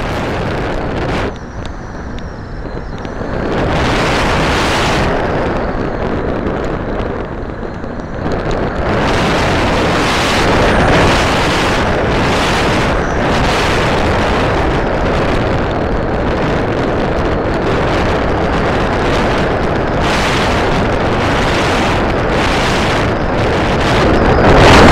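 Wind rushing over the onboard camera microphone of a Heewing T1 Ranger VTOL RC plane in fast forward flight: a steady rush of noise. It drops back for a few seconds about a second in, then returns louder.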